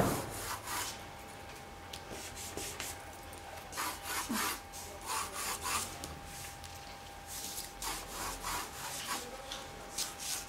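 Graphite pencil scratching across drawing paper: short strokes coming in irregular bursts with pauses between, as guide lines are sketched.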